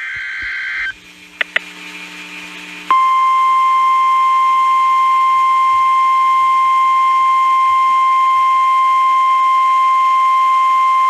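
NOAA Weather Radio alert signalling: a brief burst of warbling digital header tones right at the start, then about three seconds in the 1050 Hz Warning Alarm Tone comes on, one loud steady tone held for the rest. It is the tone that announces a new warning, here a severe thunderstorm warning.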